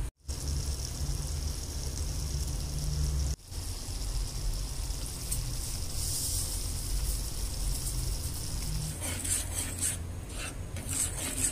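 Tomato sauce sizzling in a frying pan with a steady hiss; from about nine seconds a spoon stirring it, scraping against the pan in quick repeated strokes.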